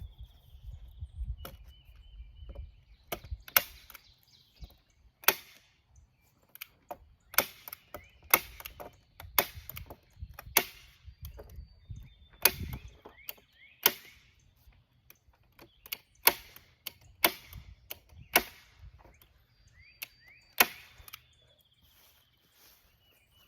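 Staple gun firing staples about a dozen times, one sharp snap every one to two seconds, as plastic sheeting is fastened to a greenhouse frame. Birds chirp faintly in the background.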